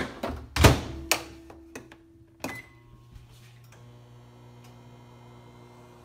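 A GE over-the-range microwave oven's door shut with two heavy thunks, then a few clicks from its keypad and a short beep, after which the oven starts running with a steady low hum.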